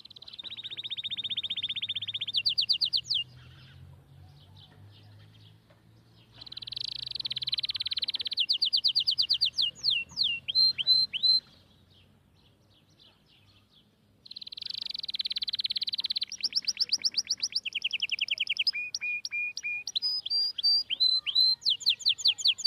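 A songbird singing: long, fast, high trills and runs of quick repeated chirps, in three bursts with short pauses between.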